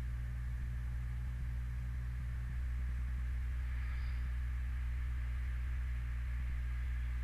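Steady low electrical hum with a faint hiss, unchanging throughout, from an open microphone on the call.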